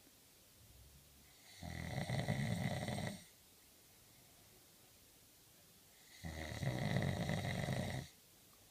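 A person snoring: two loud snores about four and a half seconds apart, each lasting one and a half to two seconds, with quiet breathing between them.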